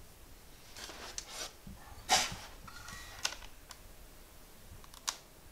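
Handling noises: a few light clicks and rustling scrapes, the loudest about two seconds in.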